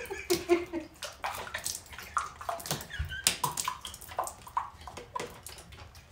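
A woman's laughter trailing off in the first second, then irregular wet sloshing and gurgling clicks from liquid in a handheld cup, with brief giggles.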